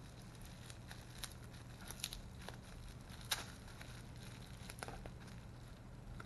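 Plastic bubble-wrap bag crinkling and rustling as it is handled and opened, with scattered small crackles; the sharpest comes near the middle. A faint steady low hum lies underneath.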